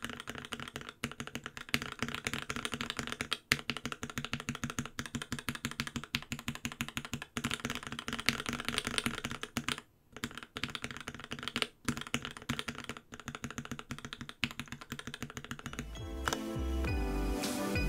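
Fast, continuous typing on a mechanical keyboard with lubed Tealios V2 linear switches, a carbon fibre plate and an aluminium case, fitted with Cherry-profile keycaps. The rapid run of keystroke clicks pauses briefly a few times. Near the end, music comes in and takes over.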